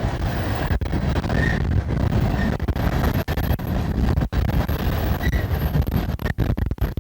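Strong wind buffeting the microphone over the rumble of a passing coal train. The audio drops out briefly several times, the wind strong enough to make the sound cut out.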